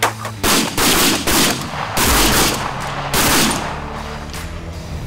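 A rapid volley of shotgun blasts from several hunters firing at Canada geese over decoys, packed into the first three and a half seconds and then dying away. A background music track with steady low notes runs underneath.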